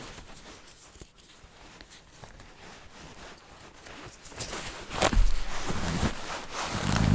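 Footsteps in snow: a quiet stretch, then a few heavy crunching steps with low thumps from about four and a half seconds in.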